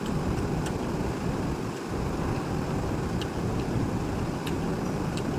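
Steady low rumble of wind buffeting the microphone, with a few small sharp clicks scattered through it.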